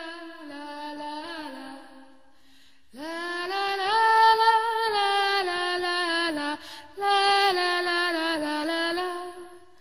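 A woman singing a traditional Serbian folk song solo, with no instruments heard, in long held phrases. A soft opening phrase ends about two seconds in, and after a short pause she comes back louder with sustained, ornamented notes.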